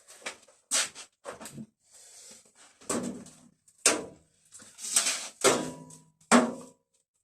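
Irregular knocks, clicks and clatters of hands working inside a washing machine being stripped for parts, as a cable is disconnected and pulled free; about nine sharp strikes in all, the loudest near the middle and just before the end.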